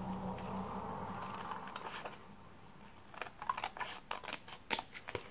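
Scissors cutting through paper: a run of quick, irregular snips starting a little past halfway.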